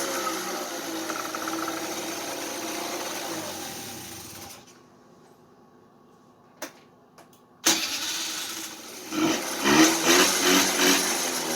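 Kymco 150cc scooter's single-cylinder four-stroke engine running with its pitch sinking, then cutting out about four and a half seconds in. After two clicks it fires up again abruptly and is blipped up and down a few times, running after a wiring harness swap.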